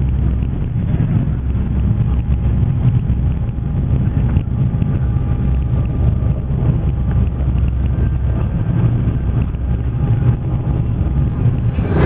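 Steady low rumble of a fast passenger ferry's engines and hull under way, heard from inside the passenger cabin.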